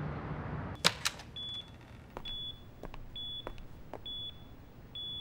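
Hospital patient monitor beeping, a short high single-tone beep about once a second, steady like a heartbeat signal. From about a second in, a few sharp clicks break through, the loudest two near the start.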